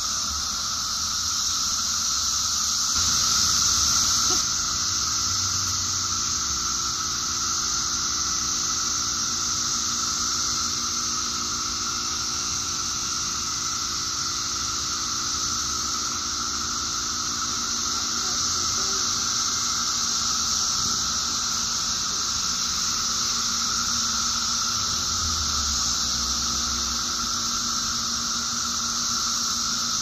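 Dense chorus of periodical cicadas: a steady, unbroken high-pitched drone with a second, lower drone beneath it.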